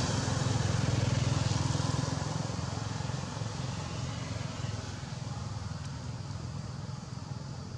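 Steady low rumble with a hiss over it, loudest in the first two seconds and fading slowly. It is outdoor background noise of the kind a passing vehicle makes as it moves away.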